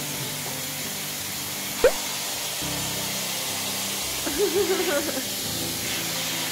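Handheld pet blow dryer blowing steadily, a rushing hiss, over background music. A short sharp rising squeak comes about two seconds in, and a brief wavering whine about two thirds of the way through.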